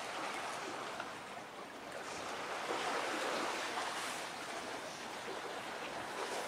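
Steady rushing noise of wind and sea waves, swelling a little around the middle.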